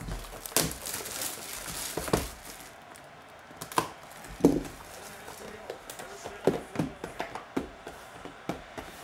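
A shrink-wrapped 2022 Topps Museum Collection trading-card box being cut open and unpacked by hand: wrap crinkling and tearing, with scattered sharp taps and knocks of cardboard as the lid comes off and the packs are handled.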